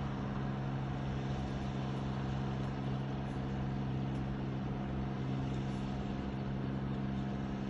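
Ride-on rice transplanter's engine running steadily as the machine plants seedlings, an even, unchanging hum.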